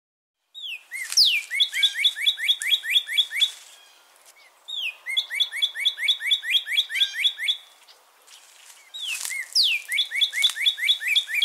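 Northern cardinal singing three song phrases. Each opens with one or two down-slurred whistles and runs into a fast series of short repeated notes.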